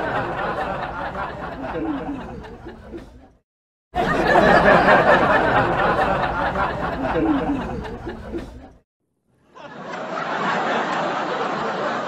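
Canned studio-audience laughter: three laugh-track clips one after another. A crowd laugh fades out about three seconds in; after a short gap a second burst of crowd laughter swells and fades out just before nine seconds; after another short gap a third, more muffled crowd laugh begins.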